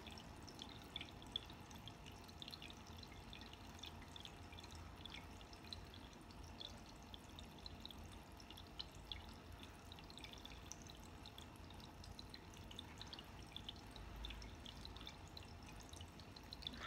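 Faint, steady trickling and dripping of a small tabletop water fountain, with many quick light drips throughout.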